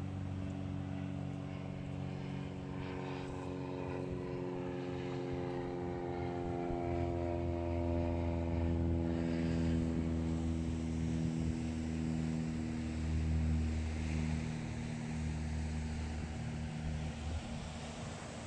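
An engine droning: a steady hum whose pitch slowly falls, growing louder toward the middle and then fading, over a steady rushing background.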